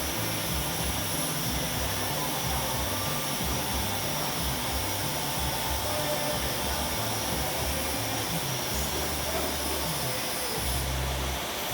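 A machine running steadily: an even whirring noise with a few faint steady tones above it.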